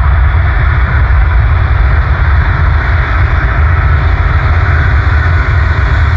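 Boeing C-17A Globemaster III's four Pratt & Whitney F117 turbofan engines running as the aircraft moves on the runway: a loud, steady jet rush over a deep rumble, with no change in level.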